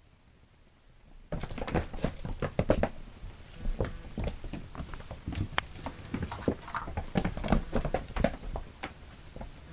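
Kittens scampering and pouncing on a carpeted floor: a fast, uneven run of light patters and scuffles that starts about a second in.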